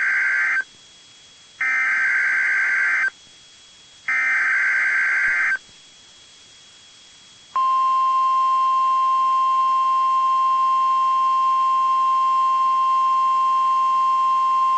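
Emergency Alert System SAME header: three bursts of digital data tones, each about a second and a half long with a gap of about a second between them. About seven and a half seconds in, a long steady single-pitch attention tone begins, signalling the start of a child abduction emergency alert.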